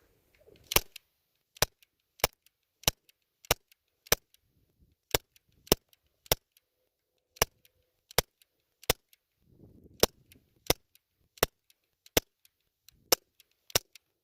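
BB gun firing a rapid string of about eighteen sharp shots, roughly three every two seconds, with fainter clicks between them.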